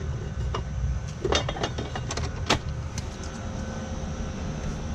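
Steady low hum of running air-conditioner condensers, with a cluster of sharp clicks and metallic knocks from hand work at a condenser's electrical controls, starting about a second in.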